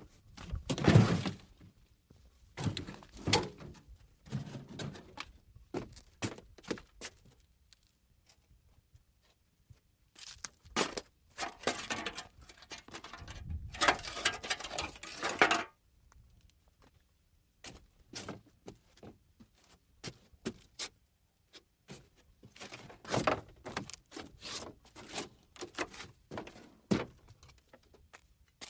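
Footsteps over junkyard debris: irregular crunches, knocks and clattering thunks separated by quiet gaps, with a longer stretch of continuous scraping and rustling about halfway through.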